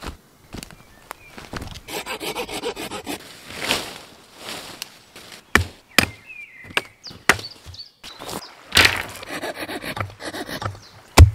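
Folding pruning saw cutting through wood in two spells of quick, even strokes, with sharp woody knocks and cracks between them.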